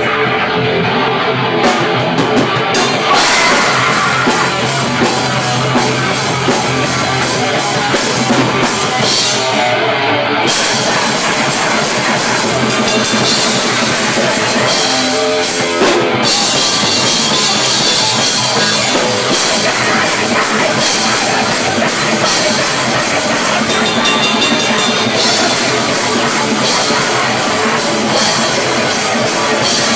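Live rock band playing loud in a small room: drum kit with cymbals, electric guitar and bass guitar, with a vocalist shouting into a microphone. The sound stays loud and dense, and the cymbal-range top end thickens about ten seconds in.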